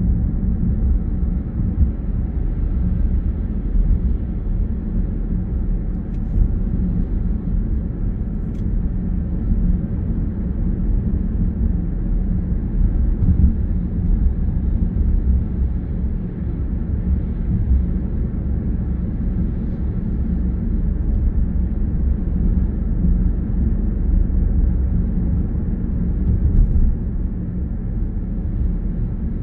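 Steady low road rumble of a car driving at an even speed, heard from inside the cabin.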